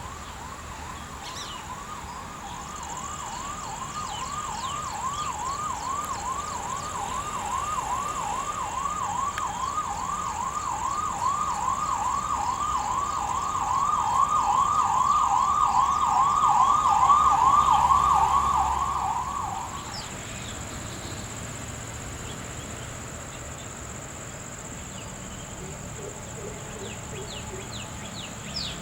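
Electronic siren in a fast repeating yelp, about three sweeps a second, growing louder and then cutting off suddenly about twenty seconds in. A steady high whine continues underneath.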